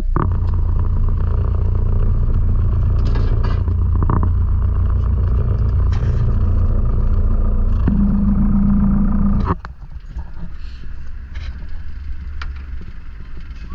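Small boat's engine running steadily at low speed, its note changing about eight seconds in, then cut off abruptly as the boat comes alongside a pontoon. Light knocks and clatter follow on the quieter boat.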